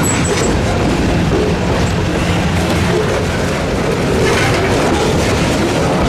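Freight train cars (loaded covered hoppers and boxcars) rolling slowly past on the rails: a steady rumble of wheels on track with a low, even drone underneath.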